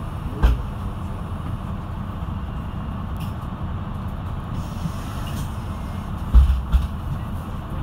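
Mercedes-Benz Citaro II city bus engine idling with a steady low rumble while the bus stands still. A sharp knock comes about half a second in, and a couple of dull thumps come near the end.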